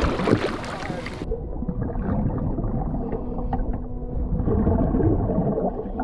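Muffled underwater noise heard through a submerged camera: low rushing water with some gurgling swells and a faint steady hum. It follows a brief moment of clearer surface sound that cuts off suddenly about a second in.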